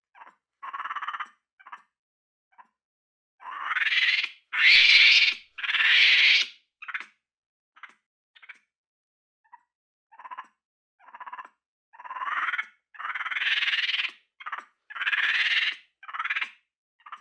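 Capuchin monkey calling: a string of short calls, then several longer, loud, harsh calls about four seconds in. After a lull, a second run of long calls follows.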